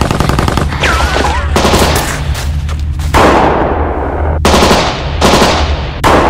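Automatic gunfire: a fast rattling burst, then about five heavier shots, each with a long echoing tail, over a steady low rumble.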